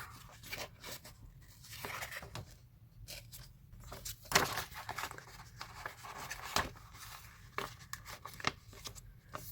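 Scissors cutting paper: an irregular run of short snips and rustles, the sharpest about four and a half seconds in.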